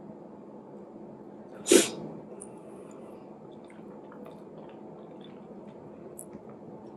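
A single short, loud sneeze from a person eating, about two seconds in, followed by faint wet clicks and smacks of eating fufu by hand.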